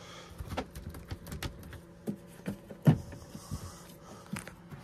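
Irregular light knocks, clicks and thumps from someone moving about in a small camper and handling the camera, with one louder thump about three seconds in. A faint steady hum runs underneath.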